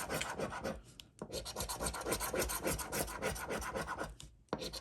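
A scratch-off lottery ticket being scratched in quick back-and-forth strokes, several a second, the latex coating rasping off the card. The scratching pauses briefly about a second in and again near the end.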